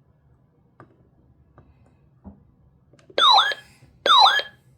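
Weather radio's alert siren in a very quick siren test: two short, loud bursts of an electronic siren with sweeping pitch, about a second apart near the end. A few faint clicks come before them.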